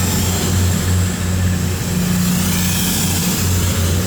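Class 222 Meridian diesel-electric multiple unit's engines running with a steady low drone.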